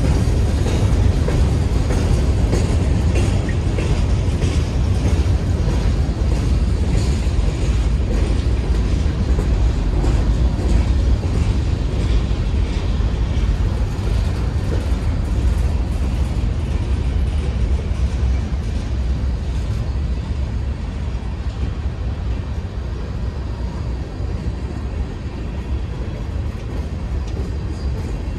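Freight cars of a mixed freight train rolling past close by, covered hoppers, then tank cars and gondolas: a steady rumble of steel wheels on rail with light clicking over the rail joints. The sound grows slowly a little quieter toward the end.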